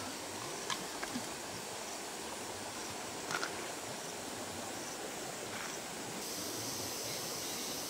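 Steady outdoor hiss of running water and open air, with a few faint light clicks as a freshly caught fish is handled in the grass.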